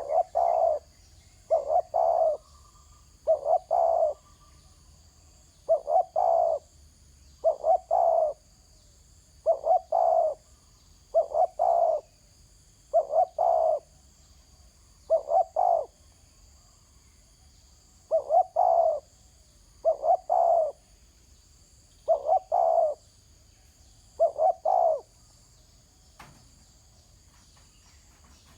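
Spotted dove (terkukur) cooing over and over: a loud two-part coo repeated about every two seconds, thirteen times, with one longer pause midway.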